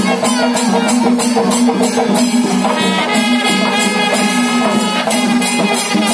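Loud music with jingling percussion strikes about three a second over a steady low drone and a melodic line.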